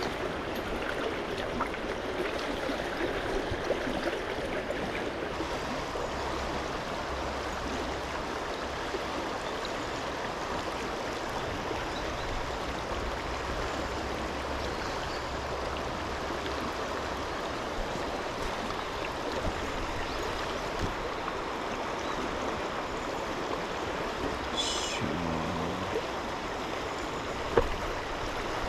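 Steady rush of a flowing river's current, with a single sharp click near the end.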